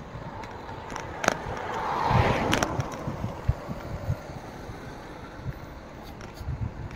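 A car passing on the road alongside, its noise swelling to a peak about two seconds in and then fading. Underneath is wind rumble on the microphone from riding a bicycle, with a few sharp rattles.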